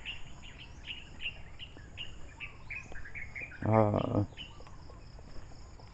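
Outdoor birds chirping over and over, short falling chirps coming several times a second, over a steady high drone of insects. A brief human voice sounds once about four seconds in.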